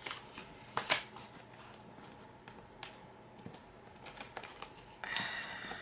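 Light handling of paper and planner supplies: scattered soft taps and rustles as sheets are looked through, the sharpest tap about a second in and a short rustle near the end.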